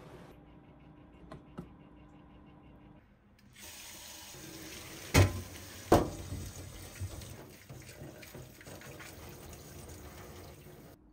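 Cold tap water running into a stainless steel sink over a colander of blanched broccoli, starting a few seconds in after a quiet stretch with a couple of light clicks. Two loud metal clanks come about halfway through, as the steel pot and colander knock together in the sink.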